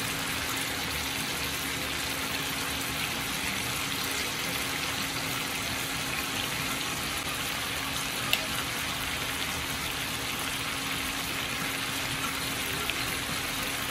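Chicken pieces sizzling steadily in oil and marinade on a grilling pan over an induction cooker, with one short click a little past the middle.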